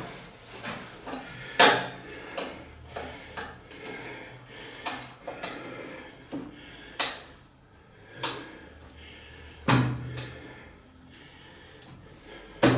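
Stabilizer stays being fitted to the metal frame of an Oztent RS-1 camp stretcher: a series of sharp clicks and knocks as the stays are worked onto the frame, the loudest about a second and a half in and near ten seconds.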